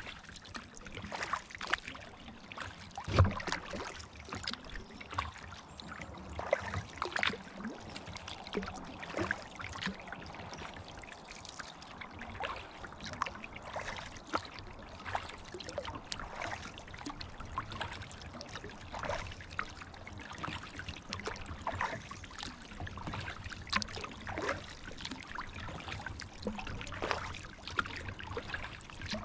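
Kayak paddle strokes in pond water: dips, splashes and dripping trickles every second or so, with one sharper knock about three seconds in.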